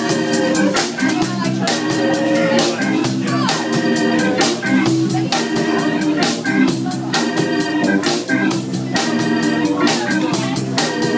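Live funk and rhythm-and-blues band playing an instrumental stretch without vocals: an organ-toned electric keyboard leads over drum kit and bass guitar, with a steady beat.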